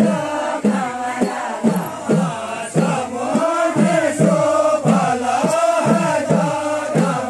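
Group of villagers singing a Kumaoni jhoda/chanchari folk dance-song together, a chant-like melody with sliding notes, over short sharp beats that keep the rhythm.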